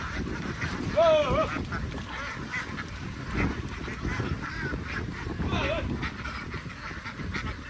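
A flock of domestic ducks calling, many overlapping harsh calls, with a loud call about a second in.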